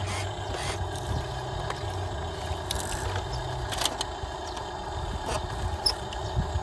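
Radio-controlled toy trucks running: a steady low electric-motor and gearbox hum that comes and goes, with a few sharp plastic clicks.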